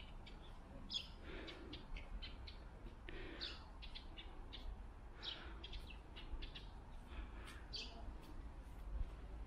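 Small birds chirping: many short, high calls scattered throughout, over a steady low rumble.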